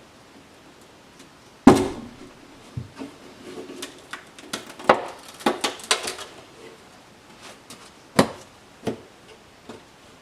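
Flathead screwdriver prying the plastic lens off a VW Mk4 Golf headlight housing, its sealing silicone softened by oven heat. There is a sharp knock about one and a half seconds in, then scattered plastic clicks and short scrapes, and another sharp knock about eight seconds in.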